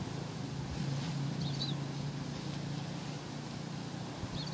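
Steady low hum of an engine running, with two short high chirps of a small bird, one about a second and a half in and one near the end.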